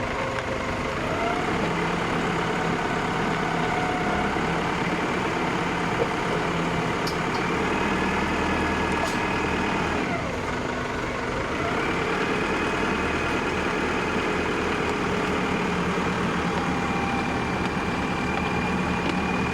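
Wheel loader's engine running steadily. Its speed rises about a second in, drops near the middle and picks up again about two seconds later.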